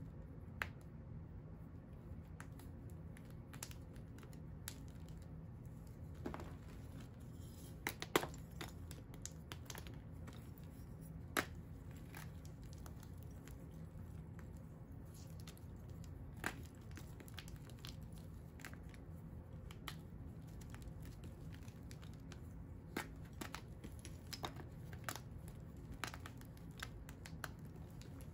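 Hands crushing and crumbling dried pink dyed blocks into powder in a plastic tub: irregular sharp snaps and crackles over a soft gritty crunch, with a few louder snaps now and then, over a steady low hum.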